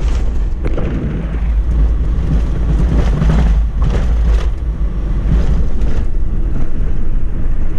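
Off-road vehicle driving along a rough dirt track: a steady low rumble with a few sharp knocks as it goes over bumps.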